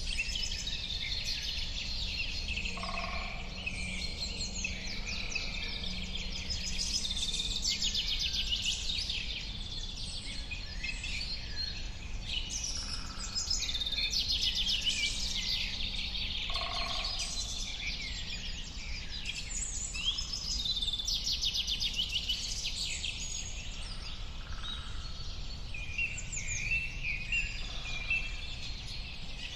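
A chorus of many songbirds singing at once: overlapping songs, chirps and fast trills with no break, over a low steady background rumble.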